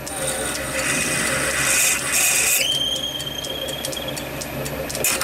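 A 6.4 mm twist drill boring into brass spinning in a lathe, over the steady hum of the lathe: a hissing cut with a thin squeal that steps up in pitch about two and a half seconds in and fades out. A sharp crack near the end, where the drill grabs in the brass.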